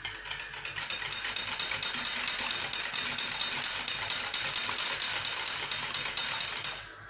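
Wire whisk beating the thickened lemon custard fast against a metal pan, making a continuous clattering rattle that stops shortly before the end.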